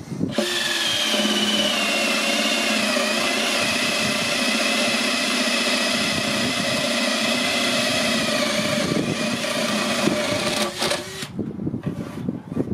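Cordless drill boring a drain hole through the oak head of a half wine barrel. The motor runs steadily under load for about nine seconds, dipping slightly in pitch as the bit bites, then winds down. Irregular knocks follow near the end.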